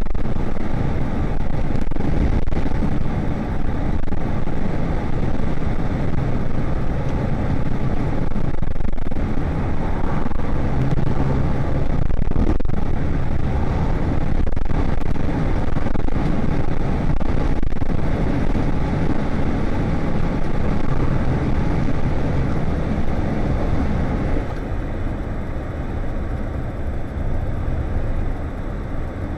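Scania S520 V8 truck driving along a town road: steady engine rumble mixed with road and wind noise, growing a little quieter near the end.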